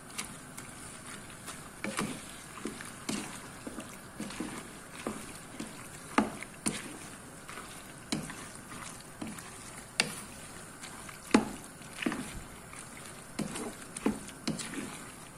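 Wooden spatula stirring penne through a thick cream sauce in a speckled nonstick pot: wet squelching and sloshing, with irregular knocks of the spatula against the pot about once or twice a second.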